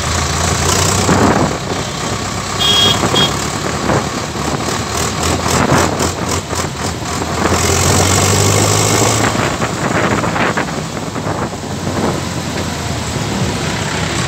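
Tractor's diesel engine running as it drives along a road, heard from on board the tractor with road and wind noise. A short high-pitched tone sounds about three seconds in. The engine grows louder for a second or so around eight seconds.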